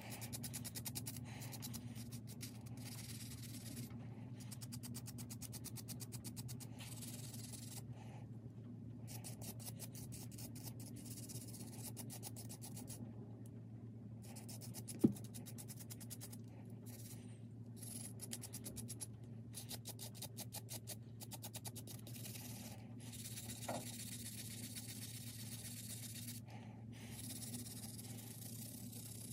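Small handheld wire brush scrubbing a small metal model-train weight clean, in runs of rapid scratchy strokes with brief pauses between them. A single sharp click about halfway through, and a steady low hum underneath.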